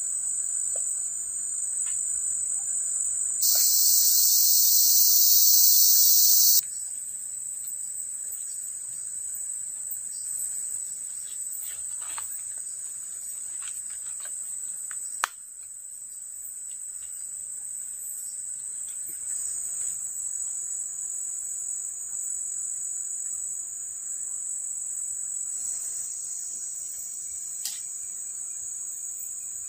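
Steady high-pitched drone of forest insects, with a much louder, harsher buzz for about three seconds near the start that stops abruptly. A single sharp click about halfway through.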